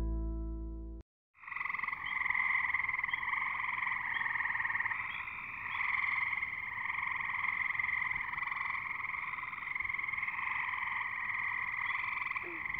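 A dense chorus of many calling frogs, a steady pulsing trill that starts abruptly about one and a half seconds in, after a gap of silence, and runs on unbroken.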